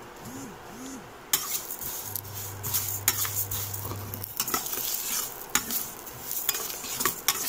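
A steel spoon stirring vermicelli frying in ghee in a stainless steel pan, with quick, irregular clinks and scrapes of metal on metal over a light sizzle. It starts about a second and a half in.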